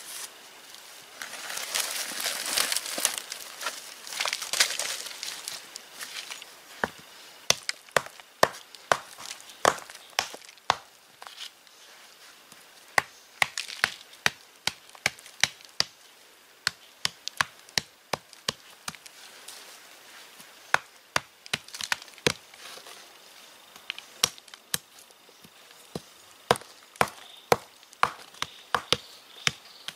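Gritty scraping of dry soil for the first few seconds, then a hand-held stone pounding lumps of dry clay against a flat stone slab: sharp knocks in irregular runs, about one to two a second.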